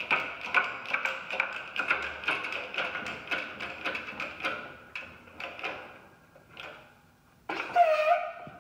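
Bearing press being worked to press a steel truss plate flush into 2x4 lumber: a steady run of clicks with a metallic ring, about two or three a second, that slow and die away about six seconds in. A short louder sound follows near the end.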